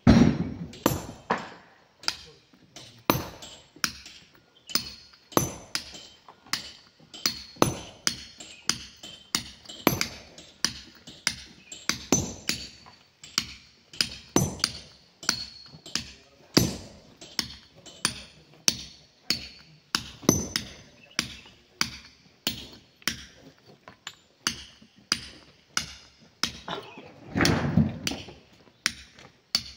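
Sledgehammer and hand hammer striking steel wedges and chisels driven into a boulder to split it. The blows are sharp metallic strikes with a short ring, about two a second and not evenly timed. A louder, heavier thud comes near the end.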